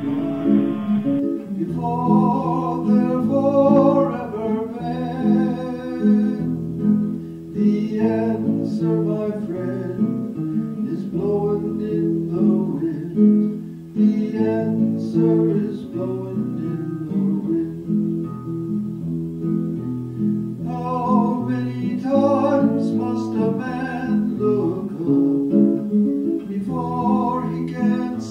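Acoustic guitar strummed in steady chords, with a voice singing a folk song over it.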